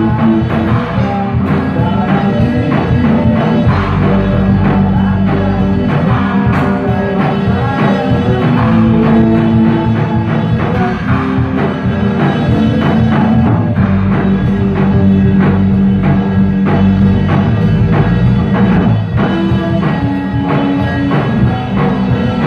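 A rock band playing live in a small rehearsal room: drum kit with electric guitars, loud and continuous, with a steady beat.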